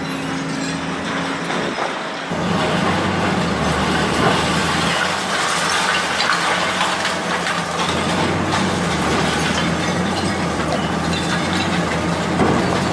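Heavy demolition machinery running, its engine a steady low drone, with cracking and crushing of building debris over it. It gets louder and denser about two seconds in.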